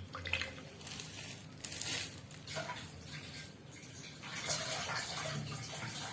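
Hot water being drained off sliced turmeric in a container, splashing and pouring away in irregular bursts.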